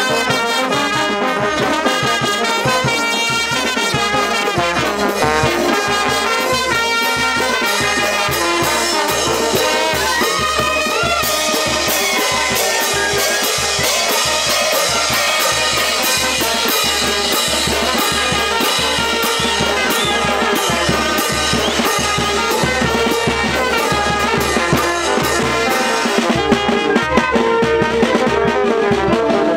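Brass band playing a dance tune: sousaphone, trumpets and horns over a steady beat of bass drum and hand cymbals.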